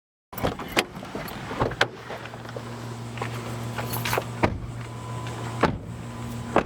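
A car running with a steady low hum, broken by a string of sharp clicks and knocks, the loudest about half a second in and near the end.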